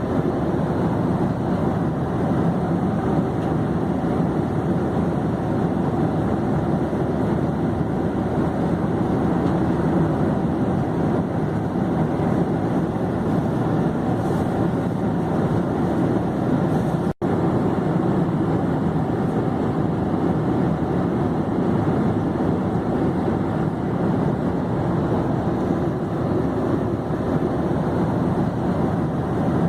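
Airplane in flight: a steady, even noise of engines and airflow that does not rise or fall. It cuts out for an instant about seventeen seconds in.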